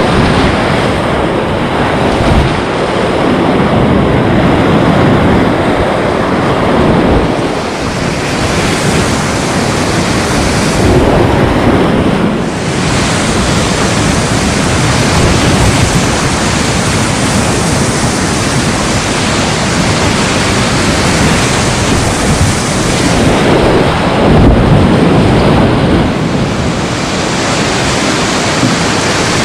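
Loud rush of whitewater rapids heard from a kayak as it runs them. The noise swells and eases as the boat passes through the waves.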